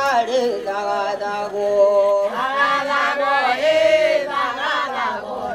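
A group of voices singing a chant-like song without instruments. The voices swell louder and higher about two and a half seconds in, then ease back.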